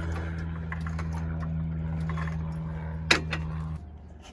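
A steady low mechanical hum with a sharp click about three seconds in; the hum cuts off suddenly near the end.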